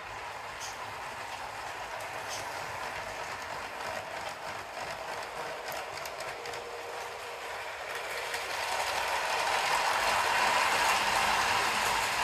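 LEGO model trains running on plastic track: a steady whir of their small electric motors and a rattle of plastic wheels over the track, growing louder from about eight seconds in.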